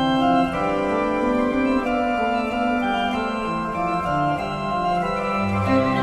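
Organ music: several held notes sounding together, the parts moving steadily from note to note.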